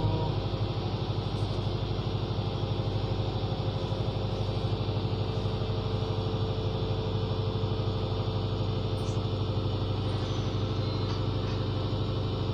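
Boat's engine running steadily, a low hum with a fast, even throb.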